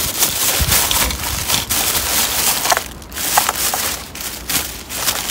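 Thin plastic garbage bags crinkling and rustling as they are gripped and pulled open by hand, with a short lull about three seconds in.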